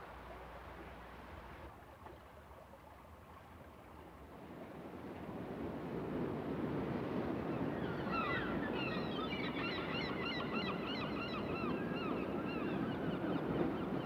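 Ocean surf breaking against rocks swells up about four seconds in, and from about eight seconds in a flock of birds calls over it in many quick, short cries. Before the surf comes in there is only a faint, low background.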